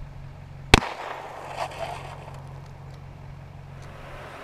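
A single shot from a .44 Marlin lever-action rifle about a second in, with a short echo trailing off.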